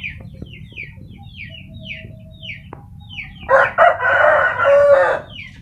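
A rooster crows once about three and a half seconds in, a loud, harsh call lasting nearly two seconds, over a steady run of short, high, falling peeps repeating about three times a second.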